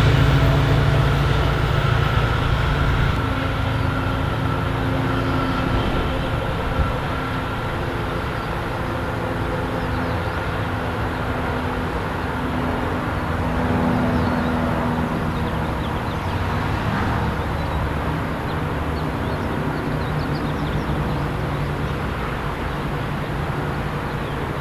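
Diesel-hauled passenger train running along the track: a steady engine drone and rail rumble that slowly gets quieter as it moves off.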